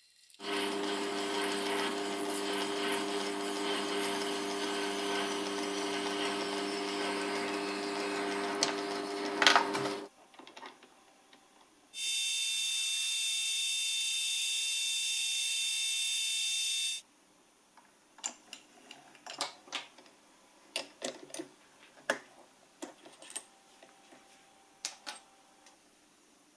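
Small metal lathe running and cutting brass, a steady motor-and-gear hum with cutting noise that stops about ten seconds in. Then a higher-pitched whine for about five seconds, followed by scattered light clicks and taps.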